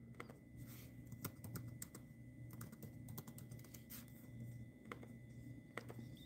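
Faint typing on a laptop keyboard: a run of soft, irregular key clicks.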